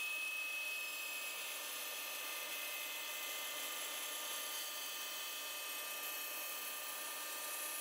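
Laguna 14|BX bandsaw with a half-inch, 18-teeth-per-inch blade running and slowly slicing a thin strip off a laminated hardwood board: a steady whine over an even hiss.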